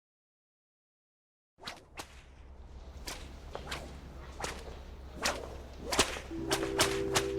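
A string of sharp whip-like cracks over a low steady drone, coming quicker as it goes, with a held musical chord joining about six seconds in: dramatic sound-design hits opening a TV drama's soundtrack.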